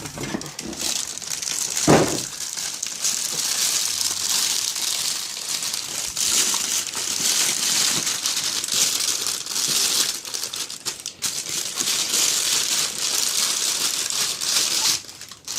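Packing material crinkling and rustling as it is handled and pulled from a box, going on steadily, with one short louder sound about two seconds in.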